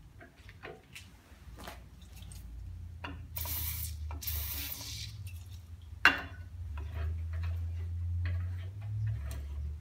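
Aerosol cutting oil sprayed in two short hisses onto the tap and hole, then one sharp knock and light clicks of handling as the hand tapper is worked. A low hum runs underneath.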